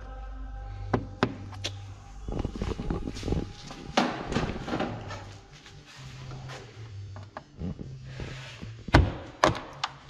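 Hand work with a screwdriver on plastic push-pin clips and a plastic engine-bay cover: scattered clicks, then a run of knocks and rattles, then a few sharp, loud knocks near the end.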